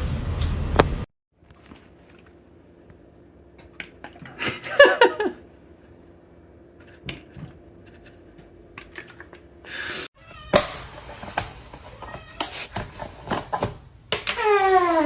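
Cat meowing: a short call about five seconds in and a long meow that falls in pitch near the end, with scattered clicks and knocks between. A loud noise stops suddenly about a second in.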